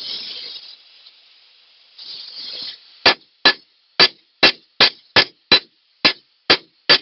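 Hammer blows on a bent steel track pin being straightened: about ten sharp, ringing metal strikes at two to three a second, beginning about three seconds in, after two short hisses.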